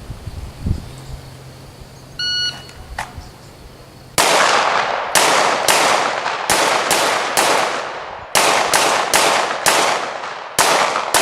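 A shot timer beeps once about two seconds in. About two seconds later a pistol opens fire in a rapid string of roughly a dozen shots, grouped in bursts with short pauses, as in a timed 1-5 drill. The firing is still going on at the end.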